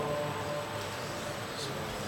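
The imam's last held chanted note dies away in the first half-second, then low steady prayer-hall noise with a couple of faint rustles.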